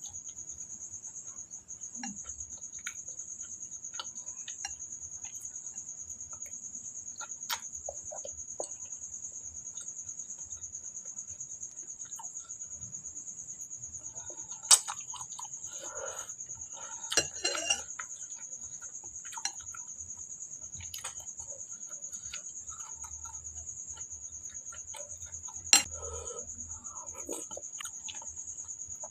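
Crickets chirring steadily in a high, fine pulse, with scattered small clicks and a few sharper knocks, the loudest about halfway through and near the end.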